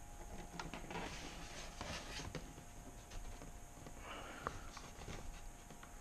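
Faint rustles and light knocks of a model airplane being handled and turned around on a table, with one sharper click about four and a half seconds in, over a faint steady hum.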